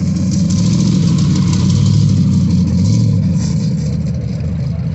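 Race-modified Jeep's engine running loud as the Jeep drives close past on the dirt drag strip. It is loudest about two seconds in and eases off a little as it moves away.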